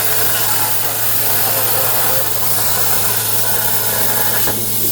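CNC plasma torch cutting steel plate, a loud steady hissing roar over a constant hum from the plasma unit. Near the end the cutting sound drops away, leaving a plain hiss of air.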